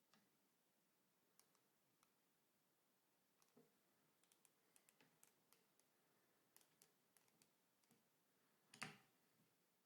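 Near silence with faint scattered light clicks, a loose run of them in the middle, and one louder knock near the end.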